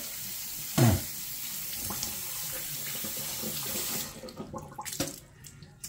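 Water running from a tap into a sink, shut off about four seconds in, with a thump about a second in and a few light knocks after the water stops.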